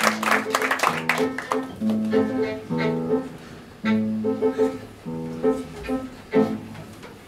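Violin and piano playing a slow instrumental passage in short phrases with brief pauses between them, dying away near the end.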